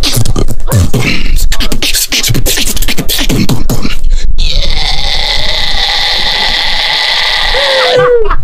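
Live beatboxing: about four seconds of rapid mouth percussion (kicks, snares and clicks), then a long held hissing tone, with a short sliding pitched note near the end.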